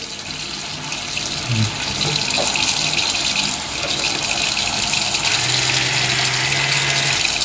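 Water running steadily from a tap while an electric toothbrush is rinsed under the stream.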